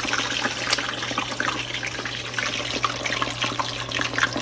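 Raw chicken wings deep-frying in a pot of canola oil heated to around 400°F: a dense, steady sizzle thick with small crackling pops, as the water in the wings hits the hot oil.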